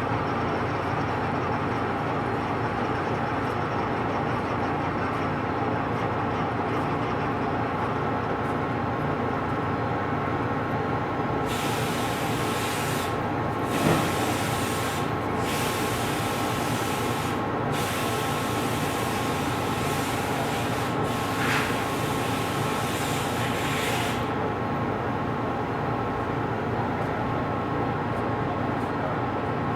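Lathe running steadily while turning a large pot-bearing part, a constant machine hum made of several steady tones. About twelve seconds in, a hiss starts and goes on in several bursts for about twelve seconds, with a sharp knock about fourteen seconds in.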